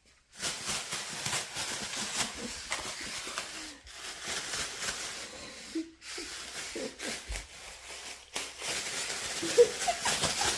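Plastic bags crinkling and rustling as a cat rummages and plays in them, in long bouts broken by a few short pauses.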